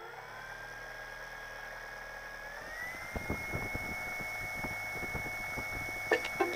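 Electric motor and propeller of an E-flite Carbon Z Splendor RC plane running on the ground with a steady whine, which steps up in pitch about two and a half seconds in as the throttle is raised. Irregular knocks and rattles from the airframe come in alongside it, and plucked guitar notes of background music start near the end.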